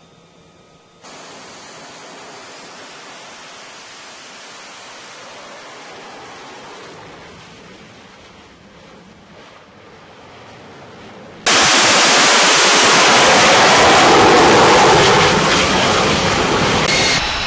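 F-35B Lightning II jet engine running on the flight deck: a steady roar that jumps abruptly much louder about eleven seconds in and stays loud, easing a little near the end.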